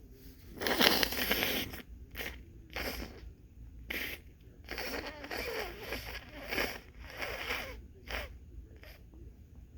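Congested person's stuffed-up nose: one loud blast of breath about half a second in, then a string of shorter sniffs and snorts. The congestion comes from allergies or a cold.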